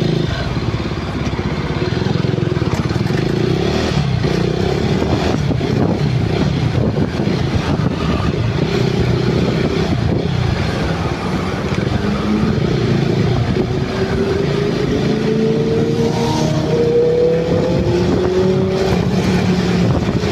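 Motorcycle running under way, with a steady rush of wind and road noise; the engine note rises as it speeds up about two-thirds of the way in.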